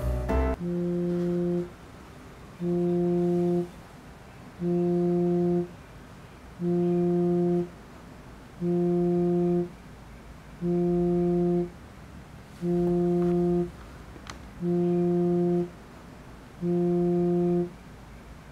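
Smartphone vibrating on a wooden cabinet top, buzzing for an incoming call: a low buzz about a second long, repeating every two seconds, nine times.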